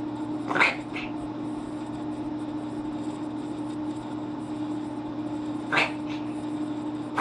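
A cat making short, sharp noisy breaths: two close together just after half a second in, another near the end. The owner suspects these fits are feline reverse sneezing.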